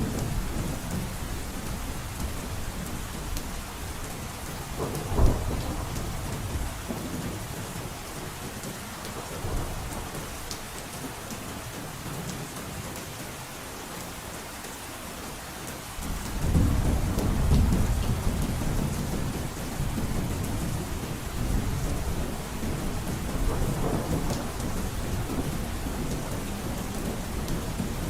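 Heavy rain drumming steadily on a roof, with low rumbles of thunder rolling underneath. A sharp loud crack comes about five seconds in, and a louder rumble swells up a little past halfway.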